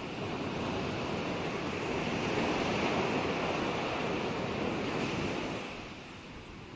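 Ocean waves breaking and washing on a shore: the surf swells to a peak a few seconds in and ebbs away near the end.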